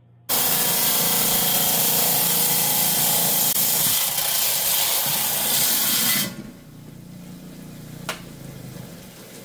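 10-inch Hi-Tech diamond-blade lapidary trim saw, water-cooled, cutting through a chalcedony and jasper rock with a loud, steady grinding hiss. About six seconds in the rock is drawn back off the blade, and the saw runs on much more quietly, with a single click near the end.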